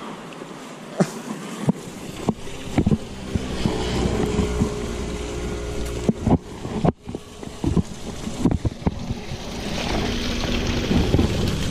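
Handling noise close to a head-mounted camera: leaves and cloth rustle, with scattered knocks and clicks, over a low wind rumble on the microphone. Water splashes near the end.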